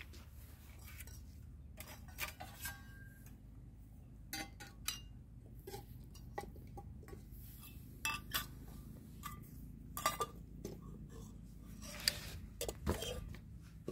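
Khichdi being served onto plates: a spoon scraping and clinking against the dishes in scattered light, irregular clinks, some with a brief ring, the louder ones about ten and twelve seconds in.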